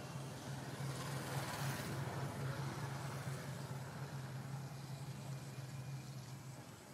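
A motor engine running steadily with a low hum, and a rush of noise that swells about a second in and fades away over the next few seconds, as of a vehicle going by.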